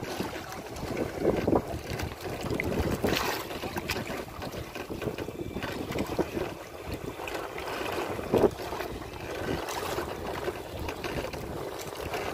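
Wind buffeting the microphone over a choppy sea, gusting up and down, with water moving around the boats. A single sharp knock about eight seconds in.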